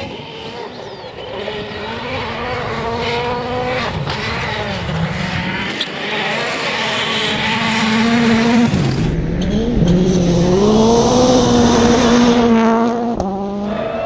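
A World Rally Car's turbocharged 1.6-litre four-cylinder engine at full attack on a gravel stage, revs dipping and climbing again several times as it approaches and grows louder. About nine seconds in, a hiss of gravel and stones thrown from the tyres joins the engine, and near the end the sound breaks off abruptly into another engine.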